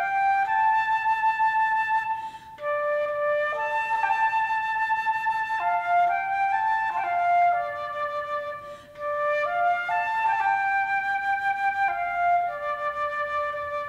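Background music: a slow solo flute melody of held notes, one note at a time.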